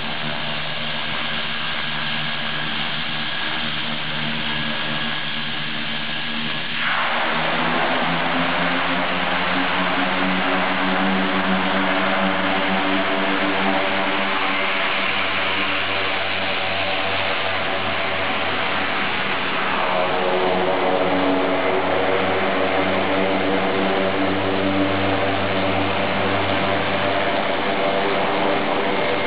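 Twin Pratt & Whitney Canada PT6A turboprop engines of a Beechcraft King Air C90A running as the aircraft taxis, a steady turbine whine with propeller hum. The sound grows louder and fuller about seven seconds in, and again about twenty seconds in.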